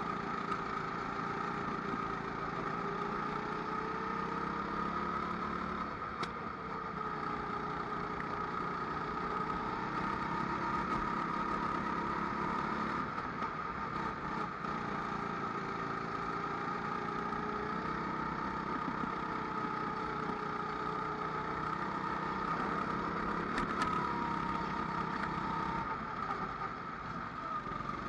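Kart engine running throughout a race, its pitch rising and falling every few seconds as the kart accelerates out of corners and lifts into them, with a couple of sharp clicks along the way.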